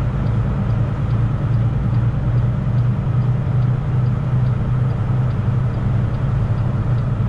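Semi truck's diesel engine and road noise droning steadily inside the cab while driving, with a faint high ticking about two or three times a second.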